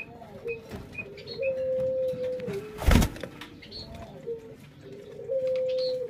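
Ringneck dove cooing: low coos, one long steady note about a second and a half in and another near the end. A single sharp knock about halfway through is the loudest sound.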